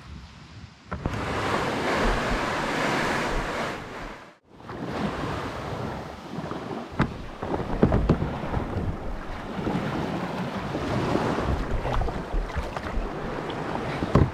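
Sea waves washing, with wind buffeting the microphone and a few short splashes or knocks. The sound drops out briefly about four seconds in, then the wash and wind carry on.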